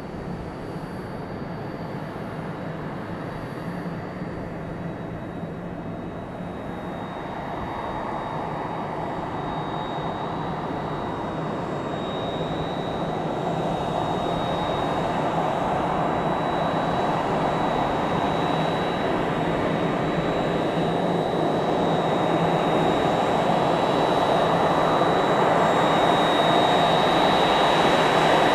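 Boeing 767-300ER's jet engines running, a steady rumble with a high whine on top, growing steadily louder as the airliner comes closer.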